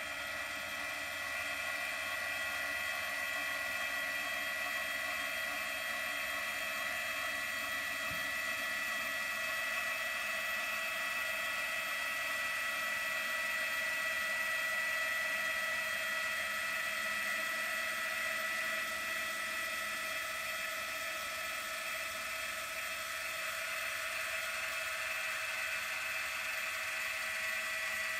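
Two electric linear actuators driving a plywood TV lift down, their motors and gearing giving a steady whine as they retract.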